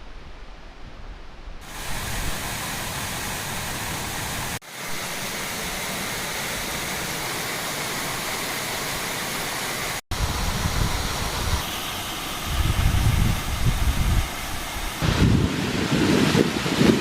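Water from a 12-metre waterfall rushing steadily, with a few abrupt jumps in the sound; from about the middle on, gusts of wind buffet the microphone with a low rumble.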